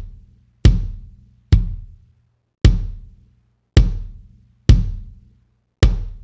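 Soloed kick drum track playing back: six single hits about a second apart, each with a sharp attack, deep low end and a short decay. It is heard through an SSL E-channel strip EQ with a band boosted and being swept to find the boxy frequency to cut.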